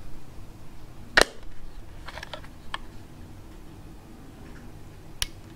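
A sharp click about a second in as the yellow magnetic colour filter snaps onto the front of a small LED video light, followed by a few light plastic handling clicks and one more sharp click near the end.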